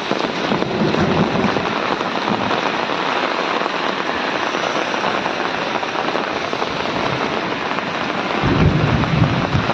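Hail and rain pelting down in a dense, steady clatter of many small impacts. A low rumble swells near the end.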